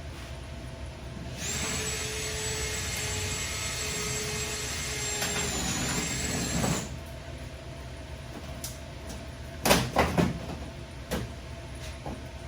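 Power drill running for about five seconds as it drills out the head of a rivet holding a body panel. A few sharp knocks and clinks follow later on.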